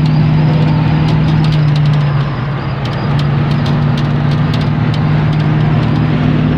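Steady engine and road drone of a 1982 Chevy C10 pickup driving, heard from inside the cab, with a broad rush of road and wind noise. The drone dips briefly about two seconds in and then picks back up.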